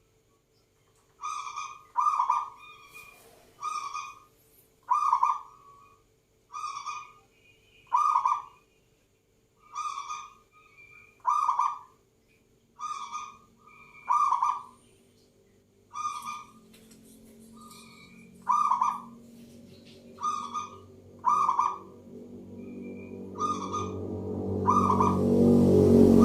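Zebra dove (perkutut) cooing: short, repeated call notes at a little over one a second, often in pairs. A low noise swells up over the last few seconds.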